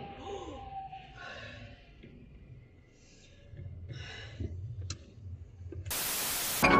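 Quiet car-cabin sound: a low steady rumble with a few faint breathy sounds and a single click. About six seconds in comes a short burst of loud static hiss from a glitch transition.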